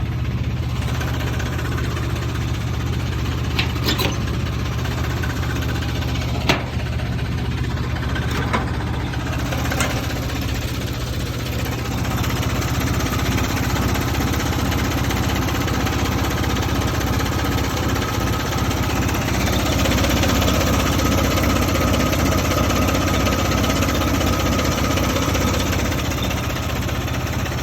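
Buick Dauntless 225 odd-fire V6 in a 1971 Jeep CJ5, running steadily at idle with a clanky, tractor-like sound. It picks up a little in level about halfway through, with a steady whine above it. The owner hears a clankety clank that he suspects shouldn't be there.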